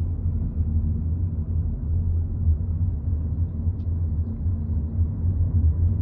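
Steady low rumble of road and engine noise inside a moving car's cabin.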